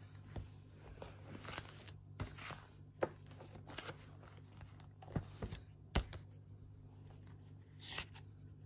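Paper rustling as pages of a ring-binder notebook and a tabbed notebook are leafed through by hand, with several sharp clicks and taps scattered through it, over a steady low hum.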